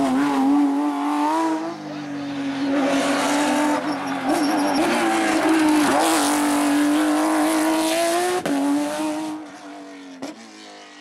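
Race car engine held at high revs on a hill climb stage. The pitch dips briefly several times, then the sound fades away near the end.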